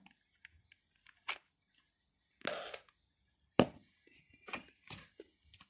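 Slime being handled and pressed in its tub for ASMR: scattered soft clicks, pops and short squishy crackles at irregular intervals.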